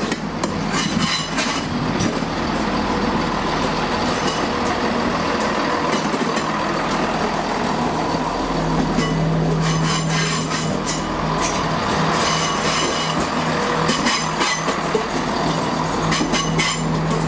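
Class 170 Turbostar diesel multiple unit passing close by at low speed, its underfloor diesel engines running with a steady drone that strengthens about halfway through, and the wheels clicking now and then over the rail joints.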